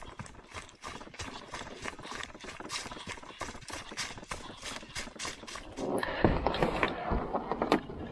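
Footsteps crunching on a dry leaf-litter forest trail at a steady walking pace. About six seconds in the sound gets louder, with rustling and knocks from handling the canoe.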